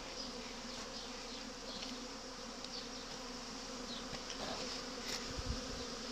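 Honeybees buzzing steadily around the hive entrances in a busy foraging flight, workers coming and going with pollen. Now and then a single bee passes close by with a brief, louder buzz.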